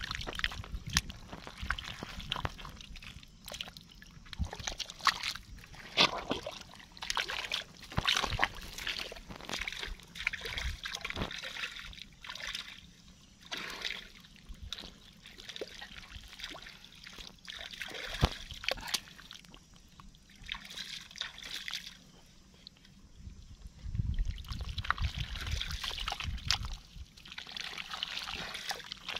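Wet mud and muddy water squelching and sloshing as hands dig and scoop into a flooded hole in a mud field, with irregular splashes and sharp little clicks throughout.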